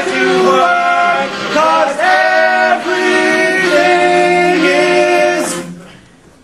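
A mixed group of male and female voices singing together in long held notes, the close of a stage musical's opening number. The singing stops about five and a half seconds in.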